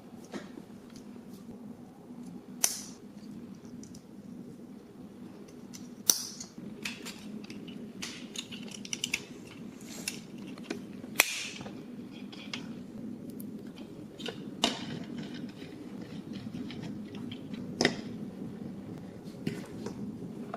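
Hard plastic Playmobil toy pieces clicking and knocking as they are handled and fitted together, with a handful of sharper snaps among many light clicks. A steady low hum sits underneath.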